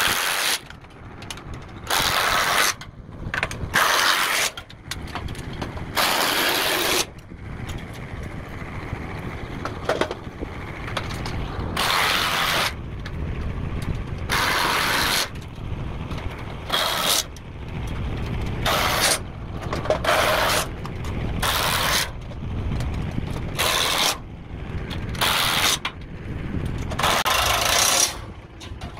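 Cordless impact driver firing in about a dozen short bursts, each a fraction of a second to about a second long, as bolts on center pivot irrigation hardware are run in.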